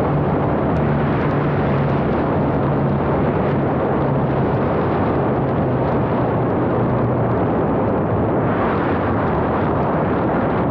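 Wind rush and the engines and propellers of a large radio-controlled Avro Lancaster model, heard from a camera on its fuselage as it lands on grass. A low steady engine hum fades about seven seconds in, and the rushing grows harsher near the end as it runs along the grass.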